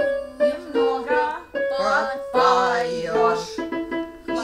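A woman singing a German song in phrases with a wavering voice, accompanied by an electronic keyboard.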